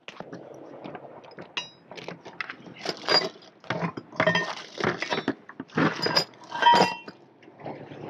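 Hardware being rummaged out of a plastic bucket: irregular knocking and rustling, with metal parts clinking and briefly ringing a few times.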